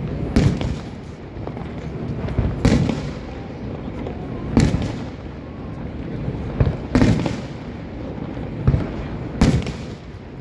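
Aerial fireworks shells bursting: about seven sharp bangs, spaced a second or two apart, each followed by a rolling rumble, over a steady background rumble.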